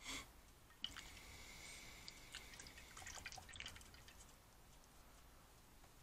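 Faint small splashes, drips and light clicks as a watercolour brush is swished and rinsed in a cup of water and tapped against the cup, mostly in the first four seconds.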